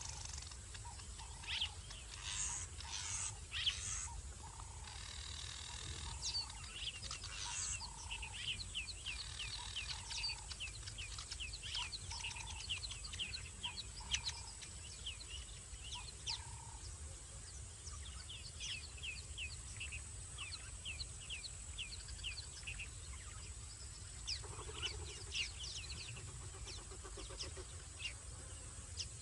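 Night chorus of small animals: rapid, repeated short chirping calls over a steady high-pitched insect drone.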